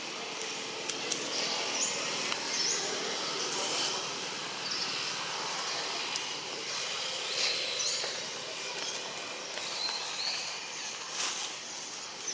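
Outdoor ambience: a steady hiss, short high chirps every second or two, and a few sharp clicks.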